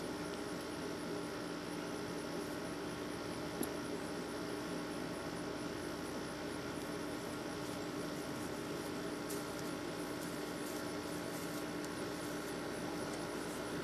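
A steady hum with an even background hiss, and one faint click about four seconds in.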